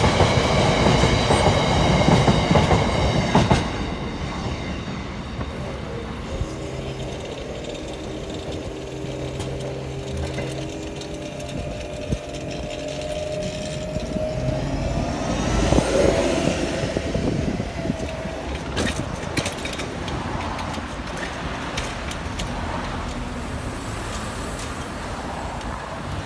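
The last hopper wagons of a freight train rumbling and clattering over a level crossing, with steady high ringing tones, until they clear the crossing about three and a half seconds in. A steady low hum follows as the crossing barriers rise. Road vehicles start moving over the crossing in the second half, the loudest one passing near the middle.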